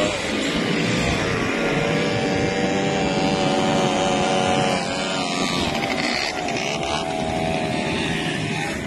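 Quad bike (ATV) engines running off-road, their pitch wavering up and down as the riders work the throttle.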